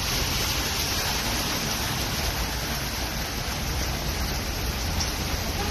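Steady rushing noise of rain and floodwater running across a flooded street.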